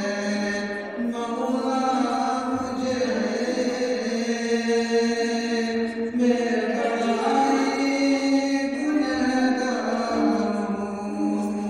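A man's voice chanting a slow, melodic recitation, holding long notes that slide from one pitch to the next.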